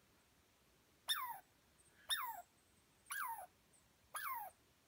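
Tree squirrel calling in alarm at the people and dog below: a short whistle that falls in pitch and starts with a sharp click, repeated about once a second, four times.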